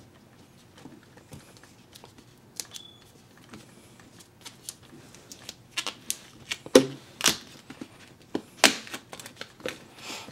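Cardboard retail box being handled and opened by hand: scattered light taps, scrapes and rustles, becoming busier with sharper clicks and snaps from about halfway through.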